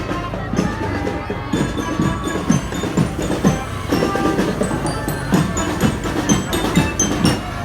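Percussion music: drum strokes about twice a second, each with a short drop in pitch, under high, bell-like mallet notes, over a steady low hum.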